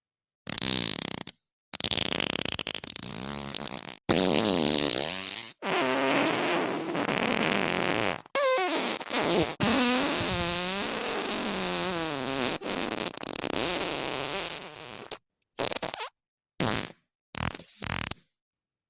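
A string of fart sound effects played one after another, each cut off into dead silence. Several long, wobbling farts run through the first fifteen seconds, the loudest starting about four seconds in, followed by a quick run of five short ones near the end.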